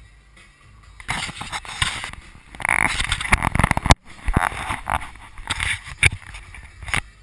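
Loud rubbing and crackling from the action camera being handled on its mount, starting about a second in, with sharp knocks near the middle and near the end.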